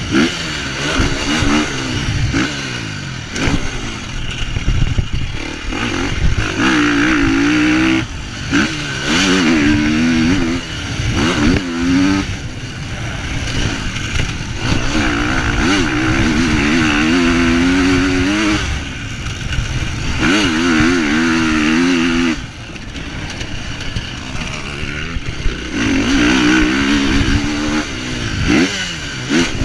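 Motocross bike engine, heard close up from the bike, revving hard and backing off again and again, its pitch climbing and falling through the gears, with brief drops as the throttle is closed.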